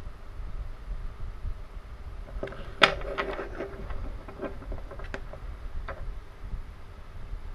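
Wooden toy train engines handled and knocked against each other: a cluster of clicks and taps over a few seconds, the sharpest about three seconds in.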